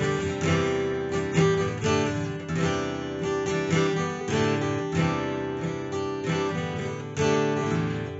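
Background music on strummed acoustic guitar, with chords struck about every half second and left to ring.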